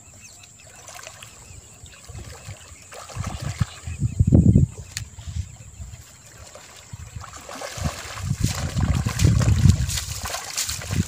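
Splashing in shallow lake water as a hooked rohu is drawn to the shore, with loud surges about four seconds in and again near the end as the fish thrashes and feet slosh through the shallows.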